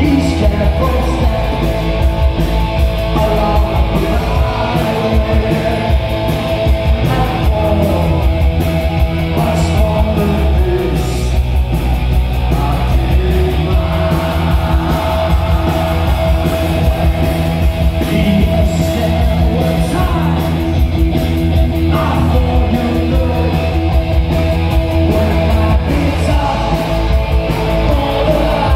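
Punk rock band playing live, heard from among the crowd: distorted electric guitar, bass and drums, with a male singer belting out the vocals.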